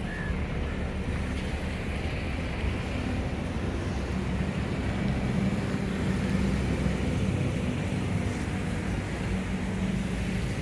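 Indian Railways inspection car running along the track, a steady engine drone and rumble with a low hum that grows a little louder midway.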